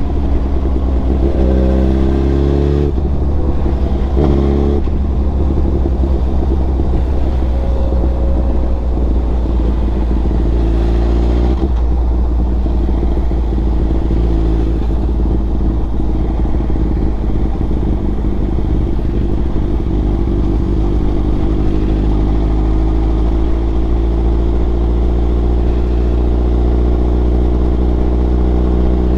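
Tuned Suzuki GSX-R1000 inline-four engine running through a Racefit exhaust while the bike is ridden. Its pitch changes up and down several times in the first dozen seconds, then it runs more steadily and slowly climbs near the end.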